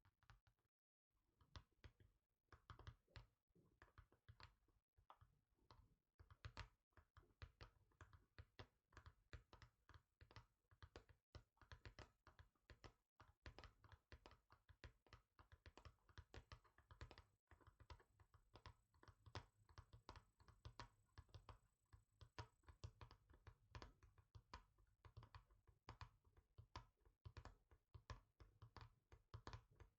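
Fingertips tapping quickly and quietly on a surface: a dense, continuous run of short taps, broken only by a brief pause about a second in.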